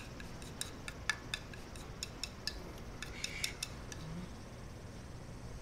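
Light clicks and clinks of chopsticks and ceramic rice and soup bowls being handled at a meal, scattered through the first three seconds or so, then fading to quiet.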